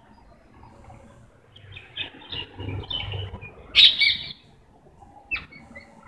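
A parrot calling in a run of short chirps and squawks. The calls start about two seconds in, the loudest comes near the four-second mark, and one more short call follows a second later.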